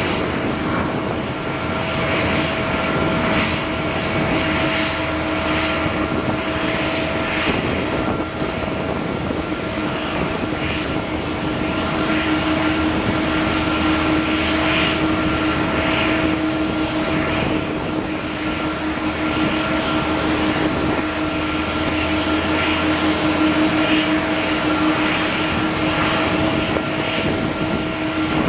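Jet aircraft on an airport apron: a steady whine with a continuous rushing noise beneath it. The whine grows somewhat stronger about halfway through.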